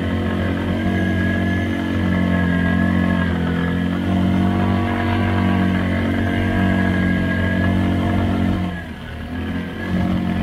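ATV engine running at a steady throttle, heard close up from the handlebar-mounted camera. It eases off briefly about nine seconds in and then picks up again.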